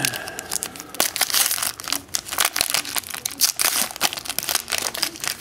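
Foil trading-card pack wrappers crinkling and crackling in a steady stream of quick sharp clicks as they are handled.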